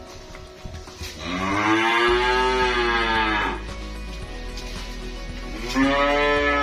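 Calves mooing: one long moo about a second in, rising and then falling in pitch, and another that begins near the end.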